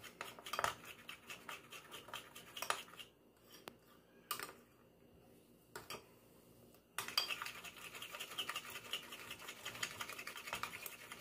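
Metal spoon stirring pancake batter in a glass bowl, clinking and scraping against the glass to break up the last lumps. A few separate taps at first, then from about seven seconds in a run of rapid, continuous beating.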